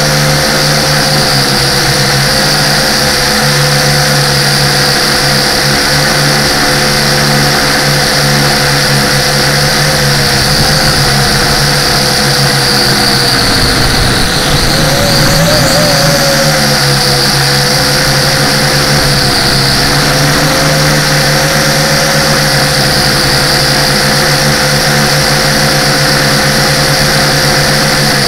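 Small remote-controlled aircraft's motors and propellers running in flight, a loud steady whine whose pitch wavers briefly about halfway through as it manoeuvres.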